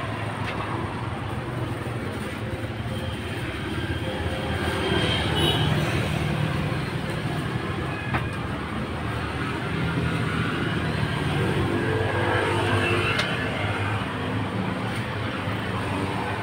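Road traffic going by: motorbikes and cars passing on the street, swelling as vehicles go past about five seconds in and again around twelve seconds in. A single sharp click comes about eight seconds in.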